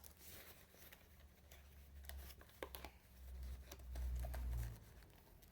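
Faint handling noises from ceiling fan parts being moved about: scattered light clicks and ticks, with a low rumble that swells about three seconds in and stops near the end.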